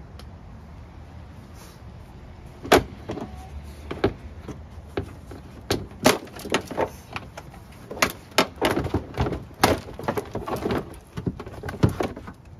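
Plastic rear fender flare being pulled off a Jeep Wrangler: a string of sharp, irregular snaps and pops, starting about three seconds in, as its press-fit rivets let go, with plastic rubbing and knocking in between.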